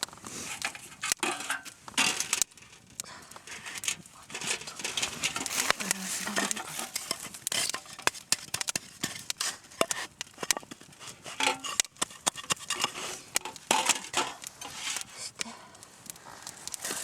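Irregular clicks, knocks and scrapes of camp gear being handled, with light clinks like pots and utensils.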